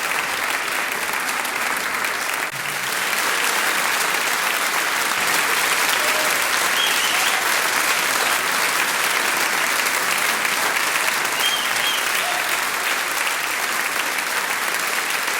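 Audience applauding: many hands clapping in a dense, steady stream, with a brief dip about two and a half seconds in.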